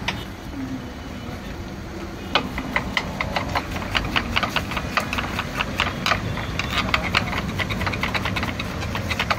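Rapid knife chopping on a cutting board, starting about two seconds in, the blade striking the board several times a second as tomato, capsicum and onion are diced. Under it runs a steady low street rumble.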